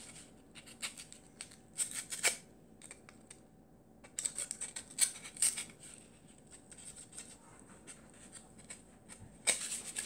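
Utility knife blade slicing through corrugated cardboard, in bursts of short scratchy strokes separated by pauses.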